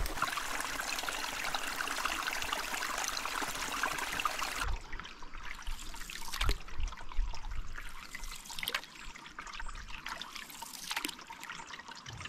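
Steady rush of river water; about a third of the way in it changes abruptly to a quieter trickle and lapping of water with a few faint clicks.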